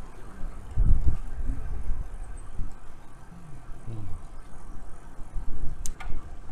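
Wind rumbling in gusts on the microphone of a moving bicycle, with faint road noise and a sharp click near the end.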